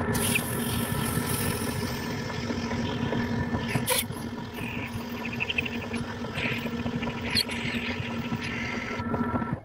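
Metal lathe running at a steady speed, spinning a dynamo armature while abrasive paper rubs against its copper commutator, a hissing scrape over the motor's hum. This is the commutator being cleaned of corrosion. The lathe shuts off suddenly near the end.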